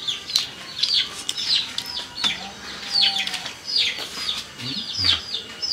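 Chicks peeping: a run of short, high, falling peeps, about two a second.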